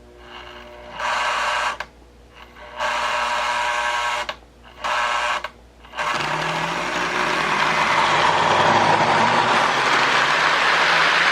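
Lionel MPC-era Illinois Central U-boat toy diesel locomotive's electric motor buzzing in three short starts and stops. About six seconds in it runs steadily, pulling a train of cars along the track and growing louder.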